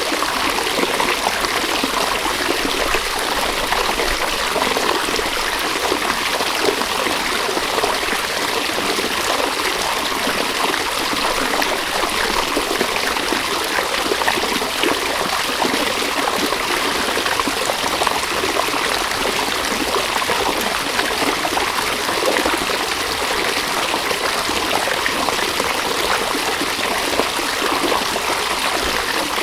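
River water flowing over stones, a steady rushing with trickling and burbling.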